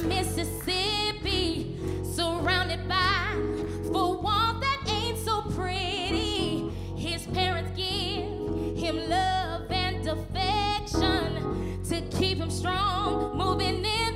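A woman singing a Motown song solo into a microphone with strong vibrato, backed by a live band of drums, bass and keyboards.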